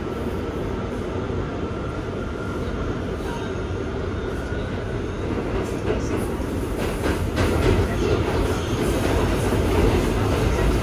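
Inside a moving Kawasaki R211T subway car: the steady rumble of the train running on the rails. The noise grows louder in the second half, with a few sharp clicks of wheels over rail joints.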